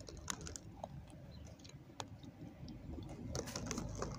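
Faint, scattered small clicks and light taps of things being handled, with a little chewing.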